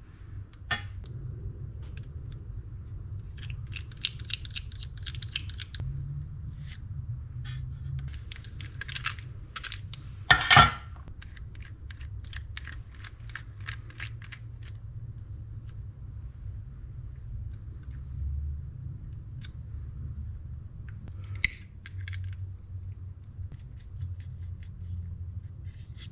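Small metal reel parts and tools clicking and clinking as a Shimano Stella FE spinning reel is taken apart, with a run of quick clicks early on, one louder clack about ten seconds in and a short rattle near twenty-one seconds. A low steady hum sits underneath.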